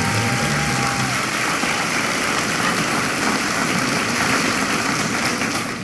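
Studio audience applause: a dense, steady clapping that cuts off abruptly near the end. The last note of the show's theme music fades out in the first second.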